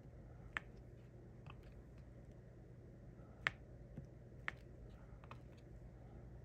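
Small, sharp plastic clicks and taps of diamond painting: a drill pen picking up resin drills and pressing them onto the canvas. About six scattered clicks, the loudest about three and a half seconds in, over a faint steady low hum.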